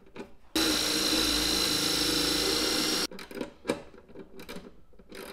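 Wire brush on a power drill running steadily for about two and a half seconds, scrubbing paint off the car body's ground point down to bare metal so the amplifier ground makes clean contact. It starts and stops abruptly, with a few faint clicks from a socket ratchet around it.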